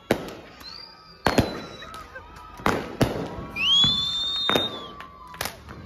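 Fireworks and firecrackers going off: about six sharp bangs at uneven intervals, one every second or so. About three and a half seconds in, a high whistle rises and then holds for about a second.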